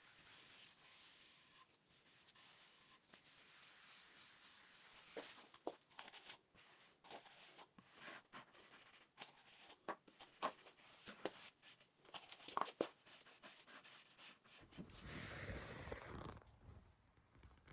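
Faint handling noises: scattered light taps and rubbing, then a short rustle about fifteen seconds in.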